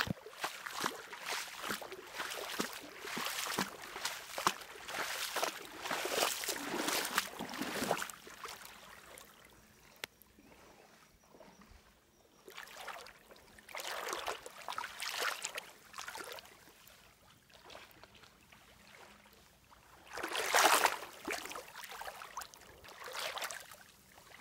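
Shallow stream water splashing and sloshing in irregular bursts, busy for the first several seconds, then quieter with short surges twice later on.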